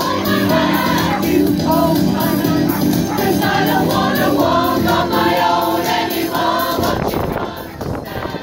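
A large community rock choir singing a pop song together in many voices. The singing thins out near the end.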